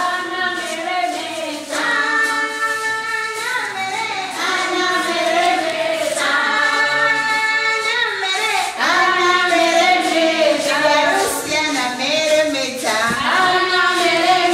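A choir of high voices singing a song with musical backing, the voices holding long notes.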